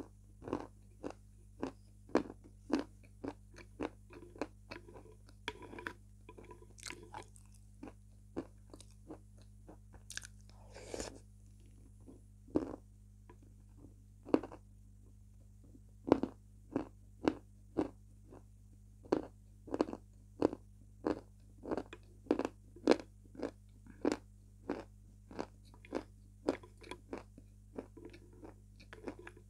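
Close-up biting and chewing of crunchy food, with sharp crunches about once or twice a second at an uneven pace.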